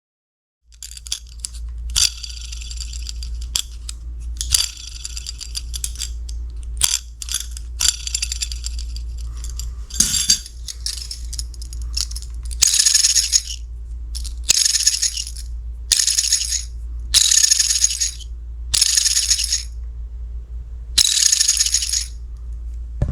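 Buzzbait's metal blade spinning on its wire arm and squeaking where metal rubs on metal, in a series of short high-pitched squeaks. About halfway through, the squeaks become longer, about a second each, repeating every second and a half. A steady low hum runs underneath.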